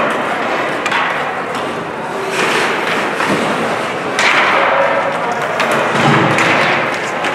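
Ice hockey play in a rink: skates scraping on the ice and sharp knocks of stick and puck, with a crack of a shot on goal about four seconds in. Voices call out over the din.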